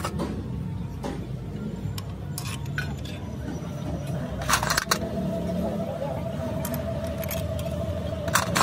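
Steel hand tools and spanners clinking and clattering as they are picked through in a metal pan, then scattered metal clicks and knocks of tool work on the gearbox housing, over a steady low drone. A thin steady hum joins about five seconds in.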